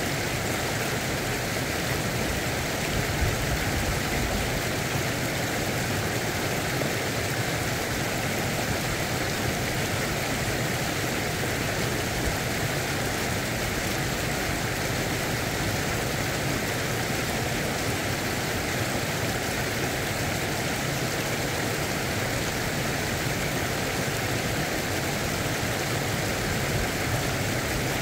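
Steady rush of stream water pouring over a low weir.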